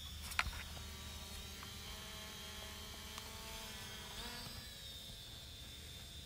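Small quadcopter drone's motors and propellers heard faintly from its own onboard camera: a steady electric whine over a low hum, its pitch shifting briefly a little after four seconds in. A single sharp click about half a second in.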